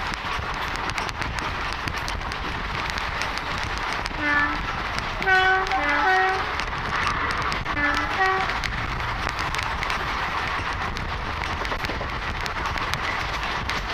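Passenger train running at speed, its steady rushing wheel and wind noise heard from the coach. From about four to eight seconds in, a two-tone train horn sounds a series of short blasts, alternating low and high notes.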